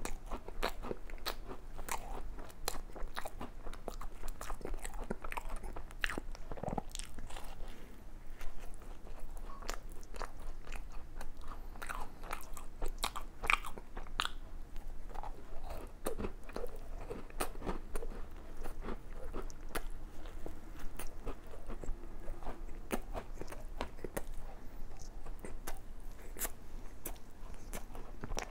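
Close-miked biting and chewing of a glazed doughnut topped with a crunchy chocolate biscuit, with many sharp crunches and wet mouth clicks.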